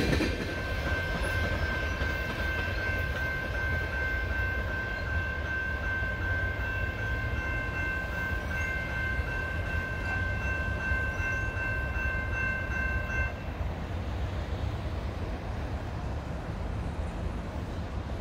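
Distant freight train rumbling low and steady as it moves away down the line. Several thin high steady tones are held over it for the first thirteen seconds or so, then stop abruptly.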